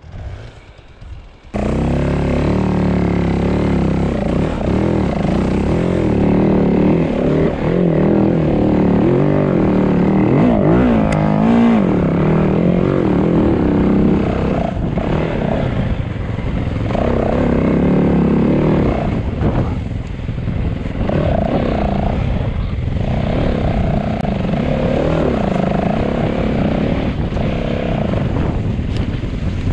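Enduro motorcycle engine running, loud from about a second and a half in, its pitch rising and falling as the throttle is opened and closed.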